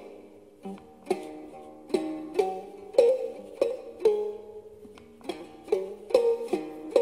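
Khse diev, the Cambodian single-string zither with a gourd resonator, played solo: separate plucked notes at an unhurried pace, each ringing and fading, some bending slightly in pitch.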